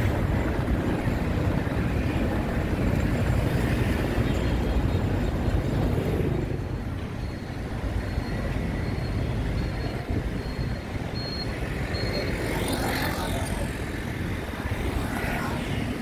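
Diesel road rollers running while compacting a roadbed, a heavy steady engine rumble, which eases about six seconds in to general road traffic with motorbikes and cars passing.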